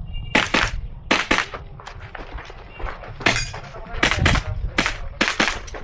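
Airsoft pistol firing about a dozen sharp cracks, mostly in quick pairs (double taps) with short pauses between groups: a shooter working through a timed practical shooting stage.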